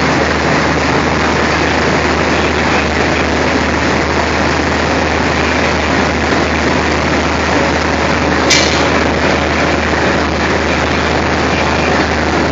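Diesel locomotive engine idling close by, a loud, steady low drone. A single sharp click sounds about two-thirds of the way in.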